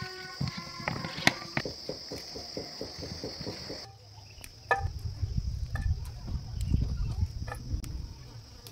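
Insects chirring steadily in one high, even note, with scattered light clicks. About four seconds in the sound changes abruptly to a low rumble with a few sharp snaps and clicks while red chillies are picked off the plants into a steel bowl, the insect chirring fainter.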